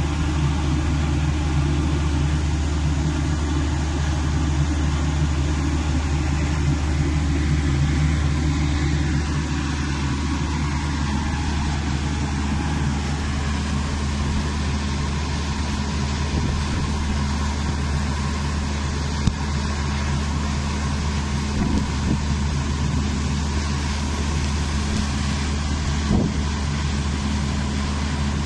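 Steady low motor-vehicle engine hum with a constant rushing hiss over it.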